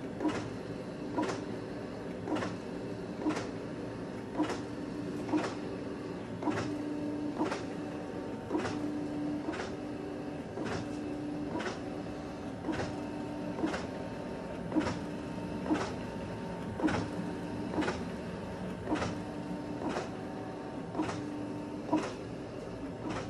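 Canon imagePROGRAF PRO-2100 large-format inkjet printer printing. A sharp click comes about once a second, with a steady hum between the clicks, as the print head carriage sweeps back and forth across the paper.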